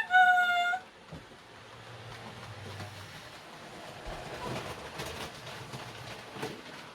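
Two-tone diesel locomotive horn sound effect for a model DB Class 212: a higher note then a lower one, sounded once and loudly as the sound begins, ending within the first second. After that comes quieter train running noise with scattered clicks.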